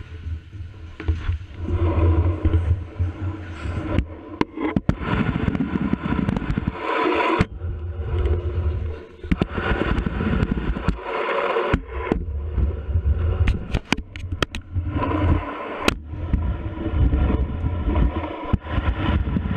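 Hard wheels rolling over plywood skate-park ramps, heard from a helmet-mounted camera: a low rumble that swells and breaks off as the rider moves through the ramps, with sharp knocks and clacks from the wheels hitting ramp edges and landing.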